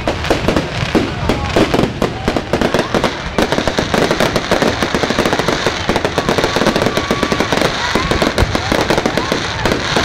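Aerial fireworks exploding overhead in a dense, unbroken barrage of bangs and crackles, many shells bursting in quick succession.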